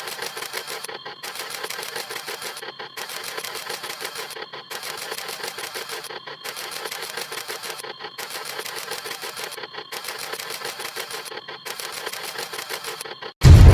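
Camera-shutter sound effect repeated in a rapid run of clicks, with a short break about every second and a half or so. Near the end, a much louder full sound cuts in suddenly.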